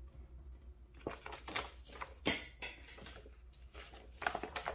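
Paper and sticker sheets being handled on a desk: a few soft rustles and light taps or clicks, the sharpest about two seconds in, with scissors being picked up near the end.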